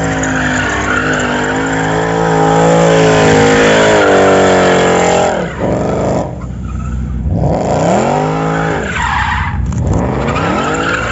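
Supercar engine revving hard, its pitch climbing and dropping several times, with tyres squealing.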